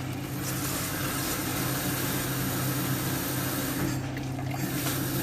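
Tap water running steadily into a stainless steel pot in a steel kitchen sink, refilling it over boiled salted fish, with a low steady hum underneath.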